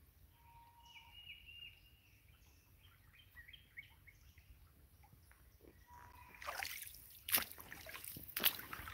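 Faint bird calls, a few short whistled notes and chirps, in the first half. Then, from about six and a half seconds in, crunching footsteps on gravel with two sharper knocks near the end.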